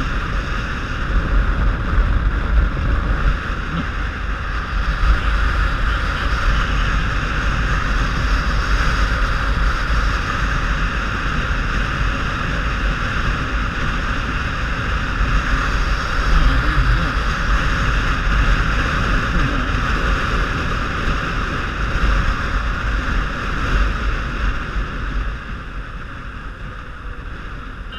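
Wind buffeting a helmet-mounted microphone, mixed with motorcycle engine and tyre noise, while riding at road speed. It eases a few seconds before the end.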